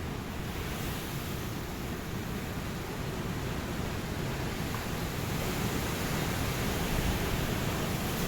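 Ocean waves washing on a beach: a steady rush of surf that slowly swells louder toward the end.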